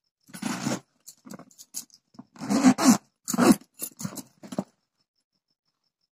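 A fabric travel bag being handled and its zip pulled open: a series of short rustles and zipper scrapes that stops about three-quarters of the way through.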